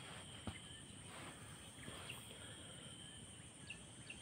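Faint outdoor ambience: a steady high insect drone with short, scattered bird chirps, and a single sharp click about half a second in.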